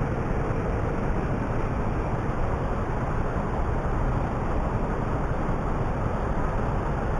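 Steady rush of wind and road noise from a motorcycle riding along, with no sudden events.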